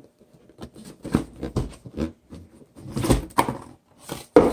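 A cardboard gift box being opened by hand: its lid and a cardboard insert knocking, scraping and rustling in scattered short bursts, with one sharp knock near the end.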